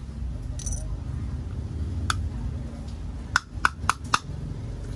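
Small sharp clicks and clinks of a phone charger's plastic shell and metal parts being pulled apart and set down on a tile floor, scattered at first, then four in quick succession near the end. A steady low rumble runs underneath.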